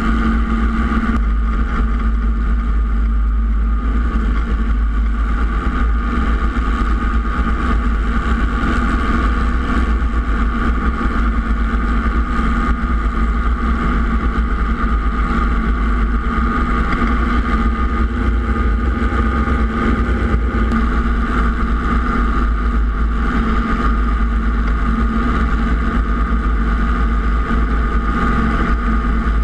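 Robinson R22 helicopter heard from an outboard-mounted camera: its piston engine and rotors make a steady, loud drone with a fixed hum. A heavy low rumble of wind buffets the microphone in the rotor downwash.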